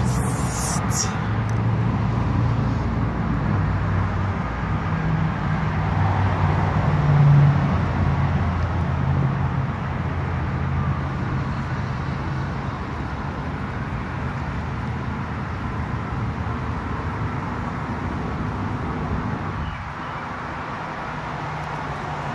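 A motor runs steadily with a low hum that shifts in pitch now and then, over outdoor background noise. A few brief clicks come right at the start.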